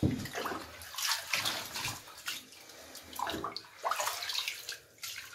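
Bath water splashing and sloshing in a series of short splashes as a cat is washed in it.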